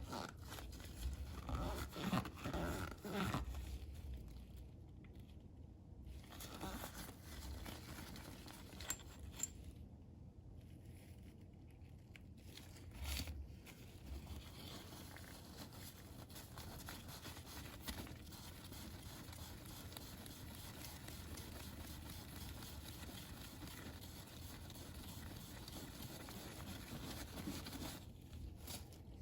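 Scraping and rubbing of hand work on oil filter parts during cleaning: a cluster of quick scrapes in the first few seconds, then faint steady rubbing with a couple of brief sharper scrapes about halfway.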